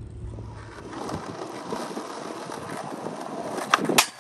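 Skateboard wheels rolling on asphalt with a rising rumble, then two sharp clacks near the end as the board is popped and lands on a metal flat rail.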